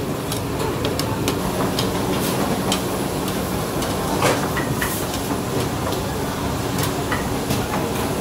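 Steady low rumble of a busy restaurant kitchen, with irregular light clicks and clacks of plastic plates and a plastic scoop as rice is dished onto plates and the plates are stacked.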